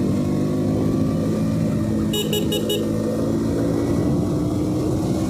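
KTM Duke's single-cylinder engine running steadily at town cruising speed. About two seconds in, a horn beeps four times in quick succession.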